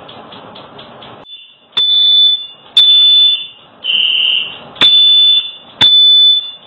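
Smoke alarm sounding at a kitchen fire: five loud, shrill beeps about a second apart, each beginning with a click, starting just under two seconds in. Before them, a faint fast-pulsing high tone over hiss.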